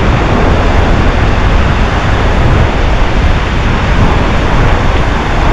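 Strong wind buffeting the microphone, a steady loud rumble, mixed with surf washing up on the beach.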